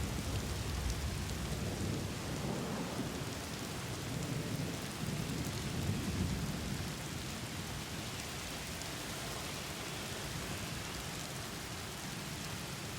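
Storm ambience: steady rain hissing, with a low rumble of thunder that dies away about halfway through, leaving the rain alone.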